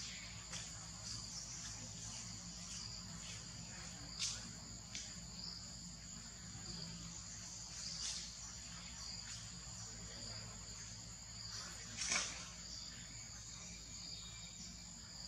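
Steady high-pitched drone of insects, with a few brief sharp sounds cutting through it, the loudest about twelve seconds in.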